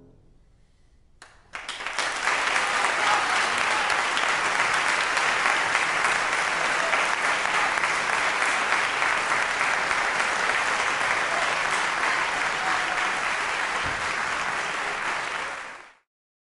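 Audience applauding at the end of a trombone and piano piece, the last held chord dying away just before the clapping starts about a second and a half in. The applause stays steady, then cuts off suddenly near the end.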